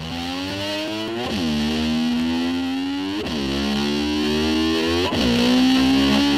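Distorted electric slide guitar imitating a motor scooter. It holds a long, slowly rising note, and about every two seconds it swoops sharply down and back up in pitch, like an engine being revved, three times.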